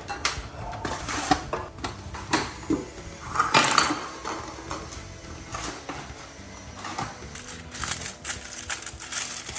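Handling a raw suckling pig on a metal roasting tray: irregular clinks and knocks against the tray, then aluminium foil crinkling as it is folded around the pig's ears.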